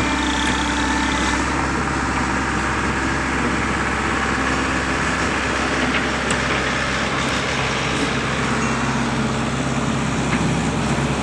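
Heavy diesel engine of a Volvo excavator running steadily at low revs.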